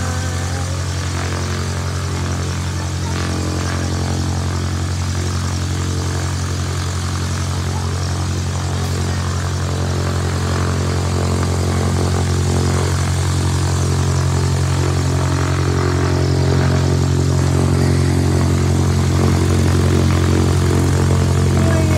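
Light propeller airplane's piston engine running steadily at low power on the ground, a low even drone that grows a little louder toward the end.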